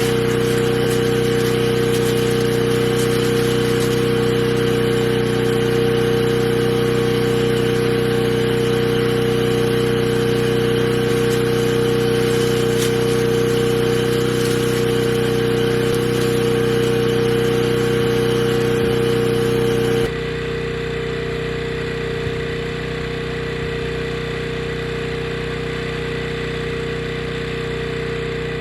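A small gasoline engine running steadily at an unchanging speed. About two-thirds of the way through it abruptly becomes quieter and duller, then runs on unchanged.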